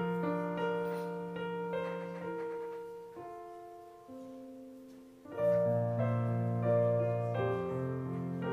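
Slow keyboard music with held chords, played during the offering. It fades down to a quiet stretch in the middle, then comes back fuller with low bass notes about five seconds in.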